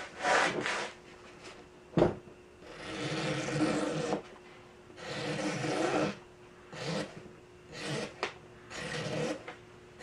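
Knife blade sawing back and forth through taut nylon seat-belt webbing: a series of scraping strokes, each up to about a second long, with a single sharp click about two seconds in.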